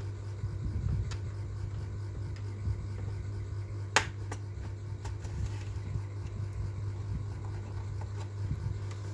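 A few sharp clicks of small parts being handled, the loudest about four seconds in, over a steady low hum.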